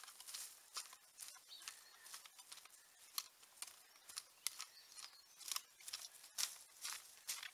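Long-handled Wolf-Garten cultivator tines chopping and scraping into soil and green-manure plants, short sharp strikes at about two to three a second.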